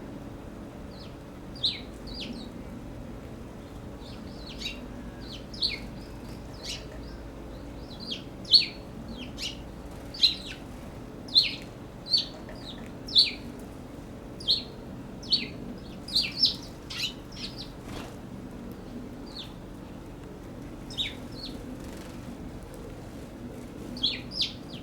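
Eurasian tree sparrows chirping at a feeder: many short, sharp chirps at irregular intervals, coming thickest in the middle stretch and thinning out near the end, over a steady low hum.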